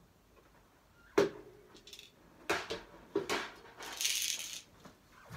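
Berimbau and its caxixi rattle being handled and set down after playing: a sharp click with a brief ring about a second in, then several light clicks and a short rattle near the end.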